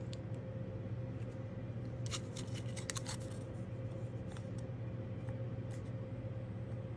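A few light clicks and taps, bunched about two to three seconds in, as a clear jelly nail stamper is pressed onto a metal stamping plate to pick up a design. A steady low hum runs underneath.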